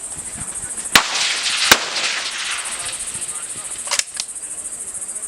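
Suppressed centerfire precision rifle shots: two sharp reports about a second in, under a second apart, then two fainter sharp cracks about four seconds in, over a steady high buzz.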